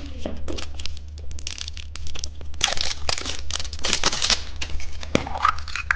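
Plastic candy packaging crinkling and tearing as it is opened by hand, a run of quick crackles that gets densest around the middle.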